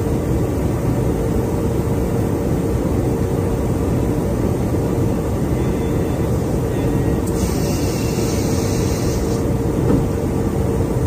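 Steady roar of engine and airflow noise inside an aerial refueling tanker's boom operator station, with a constant hum under it. A brief hiss rises over it about seven seconds in and lasts about two seconds.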